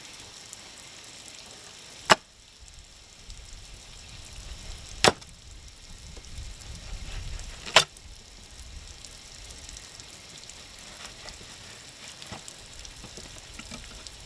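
A fillet knife slicing through a raw blackfin tuna fillet on a plastic cutting board, trimming out the bones and bloodline. Three sharp clicks come about three seconds apart.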